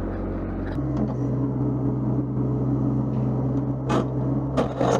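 Mini excavator's diesel engine running steadily, its note changing about a second in, with a couple of sharp knocks near the end.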